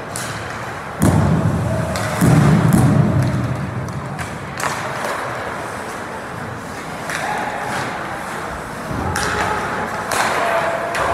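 Ice hockey game on a rink: several hard thuds against the boards and glass, about a second in, at two seconds, near the middle and twice near the end, over the scraping of skates on the ice.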